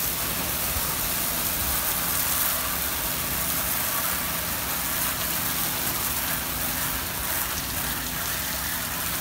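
Hose water spraying steadily against a boat's fiberglass hull and splashing into the water below, an even hiss and patter, with a faint low hum underneath.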